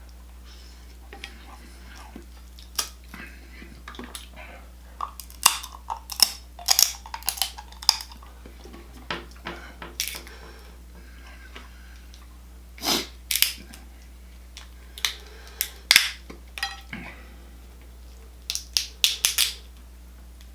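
A person eating a spicy Cajun seafood boil close to the microphone: chewing with short, sharp wet clicks that come in irregular clusters, the loudest near the middle and again near the end.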